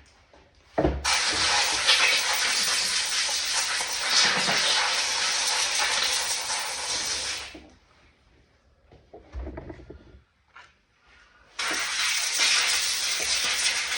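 Compressed air hissing from an air-hose blow nozzle, blowing grease and dirt off a chainsaw's clutch cover. There is a long blast of about six seconds starting about a second in and a second blast near the end, each preceded by a low knock, with faint handling clicks between.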